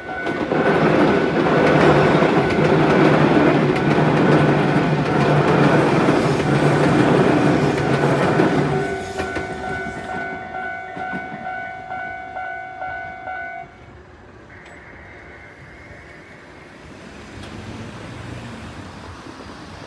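A train passes over a Japanese level crossing for about eight seconds while the crossing's electronic warning bell rings steadily. The bell stops about fourteen seconds in.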